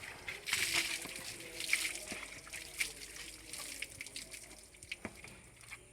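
Water trickling and splashing in an irregular run of small splashes, as an animal is being bathed.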